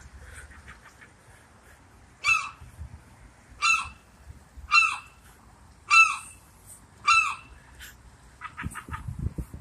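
A gull calling five times, about a second apart, each a short loud call. Near the end come a quick run of short clicking notes and a low rumble.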